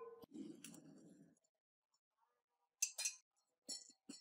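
Light clinks of a metal alligator clip and electrode against a glass beaker: a ringing clink fading at the start, a short rustle, then about four sharp clicks in the second half.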